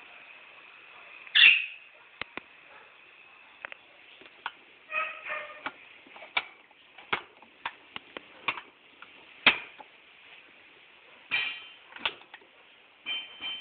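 Irregular clicks and knocks from the controls of a Class 6 kg washing machine being set, with a louder knock about a second and a half in and a few short tones.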